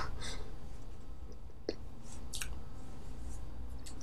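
Quiet room tone: a steady low hum under faint hiss, with a single faint click about a second and a half in and a few soft short noises.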